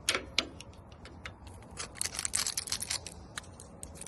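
AA batteries being handled in a door lock's battery holder: two sharp clicks at the start, then from about halfway a run of light, quick clicks and rattles.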